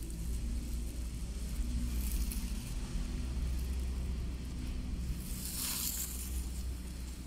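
A steady low rumble in the background, with a short rustle of fern fronds brushing the phone about five and a half seconds in.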